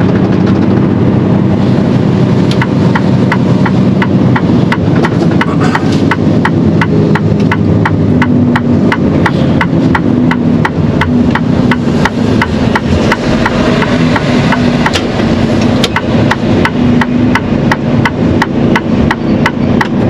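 Turn indicator of a Mercedes-Benz Actros SLT truck ticking steadily in the cab, starting about two and a half seconds in, signalling a left turn, over the truck's engine running.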